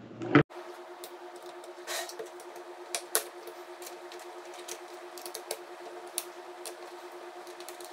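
Scattered light clicks and taps of small screws and the plastic dome housing being handled as the screws are taken out, with a sharper knock right at the start.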